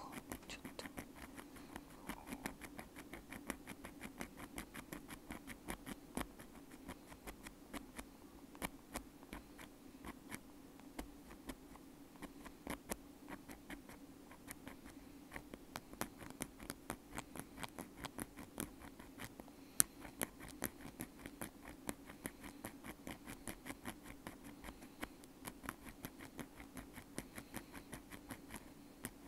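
Bamboo ear pick scratching, quick irregular scraping clicks several per second, with one sharper click about twenty seconds in.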